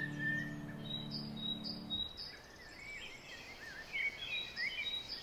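Songbirds calling and singing outdoors: a short high chirp repeated again and again, and warbling, gliding phrases. Soft background music fades out about two seconds in.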